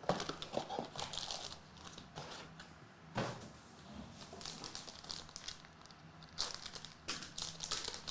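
Plastic packaging on a box of trading cards crinkling and tearing as it is opened, with scattered small clicks and rustles from handling.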